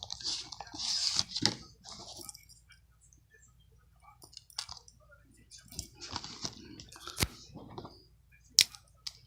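Handling of a Blu-ray case and its cardboard slipcover: rustling in the first couple of seconds and again around the middle, with scattered sharp plastic clicks, the loudest a little before the end.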